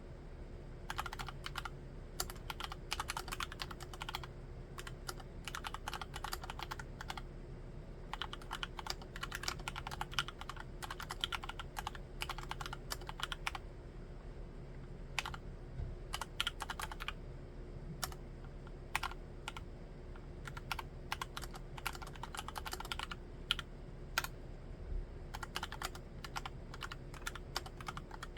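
Typing on a Cox CA106 mechanical keyboard with Gateron Brown tactile switches in a full-aluminium case. The keystrokes come in rapid runs with brief pauses between them.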